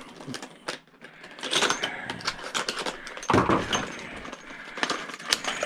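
Hand tools and small parts being handled while a jump-starter pack is taken apart: scattered clicks, clinks and rattles, with a heavier knock a little past three seconds in.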